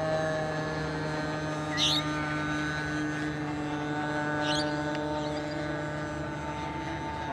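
Electric motors and propellers of a large four-engine model Hercules airplane running with a steady whine made of several close tones, drifting slightly in pitch. Two short high chirps cut in briefly, about two seconds and four and a half seconds in.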